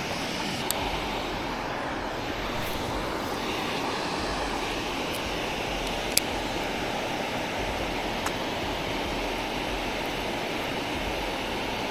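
Steady rush of water pouring through a dam spillway, with a low rumble under it and a sharp click about six seconds in.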